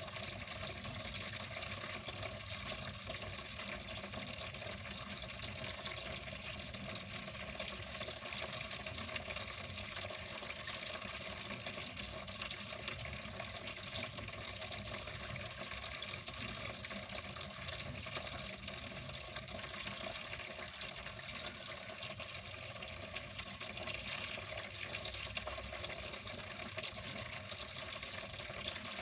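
Water flowing steadily without a break.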